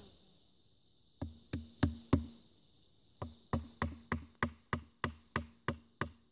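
Wooden baton striking the spine of a Gerber Bear Grylls Ultimate Survival Knife, driving the blade through a branch: four quick knocks, a short pause, then a steady run of about three knocks a second. A steady high-pitched hum sits in the background.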